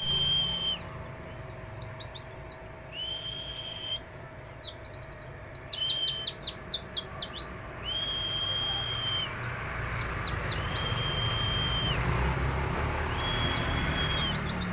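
A white-eye (pleci) singing a long, continuous song of quick, high, falling chirps in dense runs, with a long flat whistle note recurring every two or three seconds.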